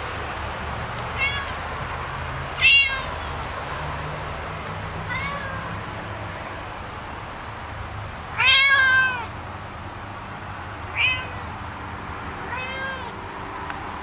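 Domestic cat meowing six times, each call rising and falling in pitch; the loudest calls come at about three seconds and about two-thirds through, and the later of the two is the longest, about a second.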